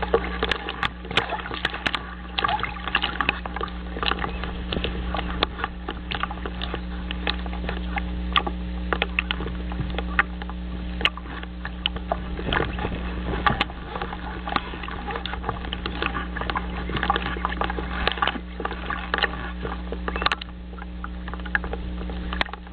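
Small waves lapping and splashing at the edge of a loon nest, heard through a nest-camera microphone as a steady wash full of irregular crackles, over a constant electrical hum.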